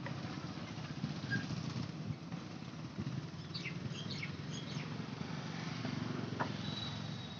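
Outdoor ambience: a steady low rumble with a short run of high, quick bird chirps about halfway through.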